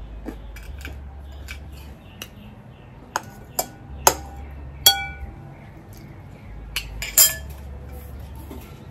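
Cutlery clinking against a dish during a meal, a scatter of sharp clinks, the loudest half-dozen between about three and seven and a half seconds in, some leaving a short ring.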